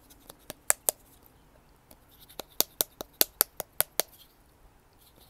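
Wooden paddle patting the wall of a wet clay coil pot to shape it: four quick sharp slaps in the first second, then after a pause a run of about nine, about five a second.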